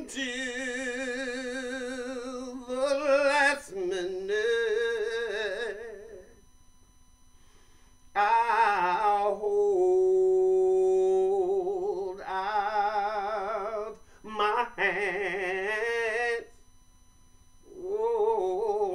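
A man singing solo without accompaniment, in a soul style: long held notes and runs with wide vibrato. The singing breaks off for about two seconds in the middle and briefly again near the end.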